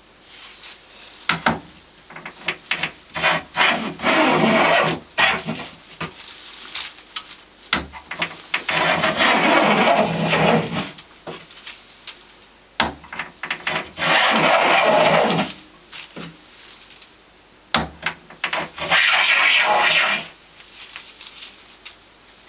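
Stanley No. 72 chamfer plane cutting a chamfer along a wooden table leg: four long rasping strokes of the blade shaving wood, each one to two seconds long. Sharp clicks and knocks between the strokes come from the plane being set down on the wood and lifted off it.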